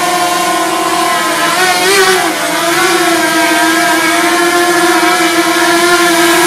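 DJI Mavic Mini quadcopter's propellers whining steadily, the pitch wavering briefly about two seconds in as the motors change speed.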